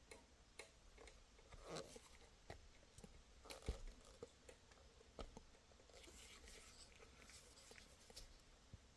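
Near silence: room tone with faint scattered clicks and light handling rustles, and a soft knock about three and a half seconds in.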